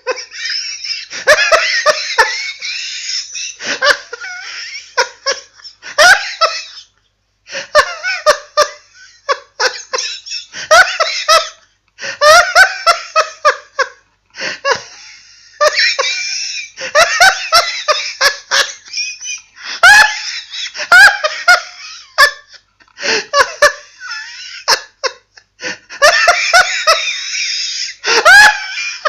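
A person laughing hard in repeated bursts, high and squealing, with short breaks between them.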